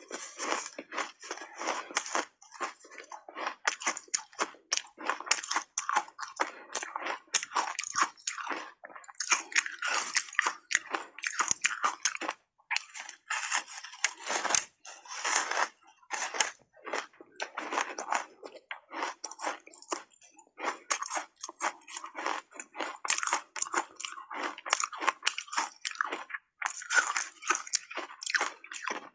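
Close-miked biting and chewing of ice coated in matcha powder: dense, irregular crunches as big chunks are bitten off and crushed between the teeth, with a couple of brief pauses about halfway.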